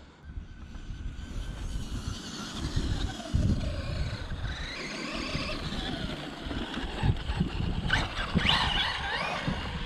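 Brushless electric motor of a 1/10 scale Remo Hobby 1035 M-Maxx RC monster truck running on a 3S battery, its thin whine rising and falling in pitch with the throttle. The whine is loudest about eight seconds in as the truck comes close, over a low, uneven rumble.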